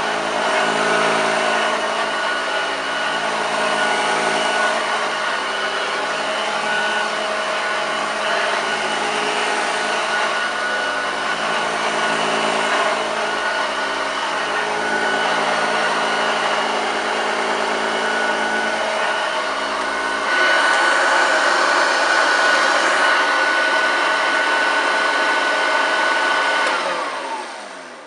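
1975 Hoover Junior 1346A upright vacuum cleaner running with a steady motor growl. About twenty seconds in the low rumble drops away and the sound turns brighter, and near the end the motor is switched off and winds down, falling in pitch.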